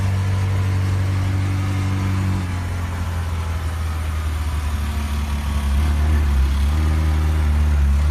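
McLaren 600LT's twin-turbo V8 running steadily at low revs, a deep even drone that grows a little louder in the second half.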